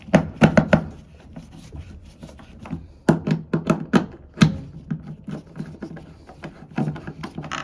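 Nuts being tightened with a wrench on the bolts of a cast iron toilet flange, so that it grips the drain pipe. The tightening comes in about three short runs of rapid metallic clicking.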